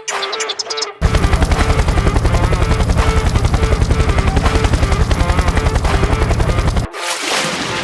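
Soundtrack music with a fast, even throbbing pulse of about ten beats a second that starts about a second in. Near the end the pulse breaks off into a louder, noisier wash.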